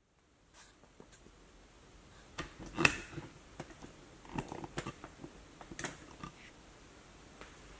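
Laptop being worked on by hand: scattered light clicks and knocks of its parts being handled, the loudest about three seconds in.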